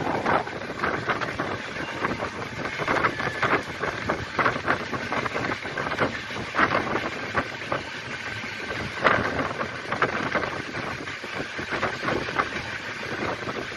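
Passenger train running at speed, heard from an open coach doorway: a steady rush of wind on the microphone over the rolling noise of the wheels on the track, with frequent irregular knocks and clicks.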